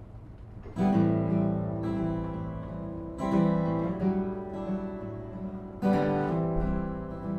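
Acoustic guitar playing a song's intro: a few strong strummed chords, the first about a second in and then roughly every two and a half seconds, each left to ring.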